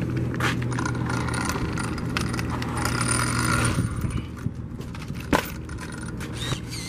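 Clatter and clicks of a 1/5-scale RC monster truck being carried by hand, then a sharp knock about five seconds in as it is set down on concrete. A steady low hum runs under the first half and stops about four seconds in.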